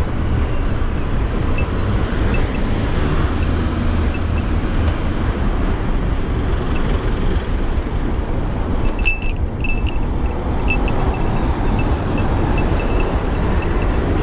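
Wind rushing and buffeting over the microphone of a bicycle's handlebar camera as it rides, with city road traffic underneath. Light metallic ticks come in scattered, then more often from about nine seconds in.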